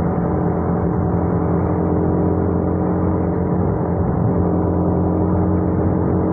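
Suzuki Raider 150 single-cylinder four-stroke engine running at a steady speed while the motorcycle is ridden.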